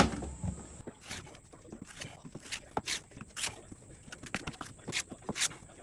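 A quick, uneven series of sharp clicks and short scrapes, a few a second.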